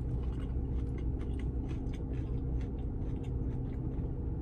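A person chewing a mouthful of crispy fried chicken sandwich, with many small crunching clicks, over the steady low hum of a vehicle cabin.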